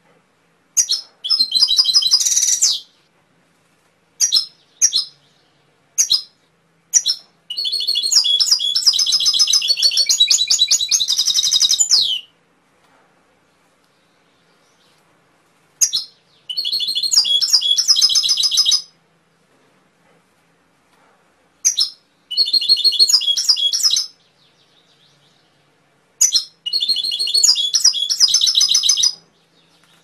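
Domestic canary singing: five rapid trilled song phrases, the longest about five seconds, with short single chirps and pauses between them.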